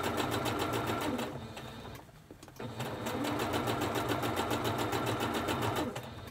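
Home sewing machine running at a steady speed, top-stitching through several layers of fabric, with its needle strokes coming fast and even. It stops about a second in and starts again a little over a second later, then stops near the end.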